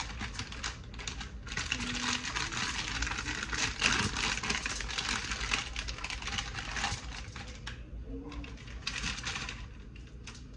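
Plastic bag of garlic knots crinkling and crackling as it is handled and the bread is taken out. The crackle dies down about three-quarters through, with a few more crinkles near the end.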